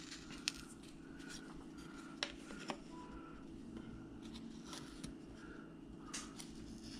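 Carving knife faintly scraping and slicing small chips from a piece of wood, a handful of short, separate cuts over a steady low hum.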